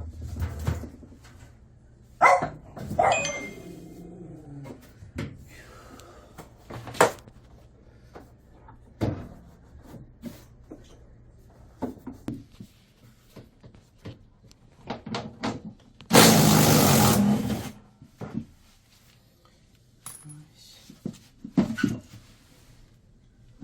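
Scattered knocks, clicks and clatter of tools and metal parts being handled during drum washing machine bearing replacement work. About sixteen seconds in, a loud burst of noise lasts under two seconds.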